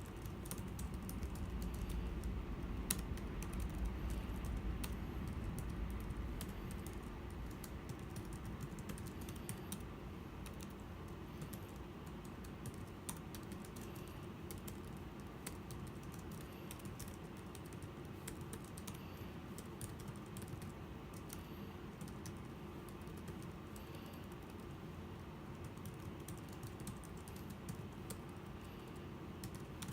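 Typing on a Logicool (Logitech) iK1200 keyboard for the 12.9-inch iPad Pro: a steady run of irregular key clicks. A low rumble underlies the first several seconds.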